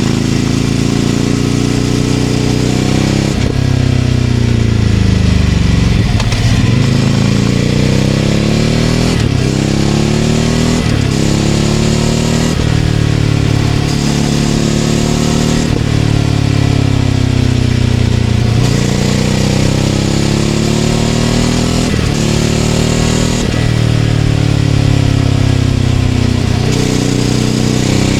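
Ducati Scrambler 800's air-cooled L-twin through a Leovince LV-10 exhaust, ridden on the road. The revs climb and drop over and over every few seconds as the rider shifts gears and rolls off and back on the throttle.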